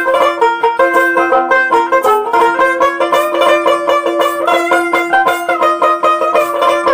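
A dotara, the Bengali long-necked folk lute, is plucked in a quick, busy melodic run during an instrumental break in a Baul folk song. A steady drone note sounds underneath it.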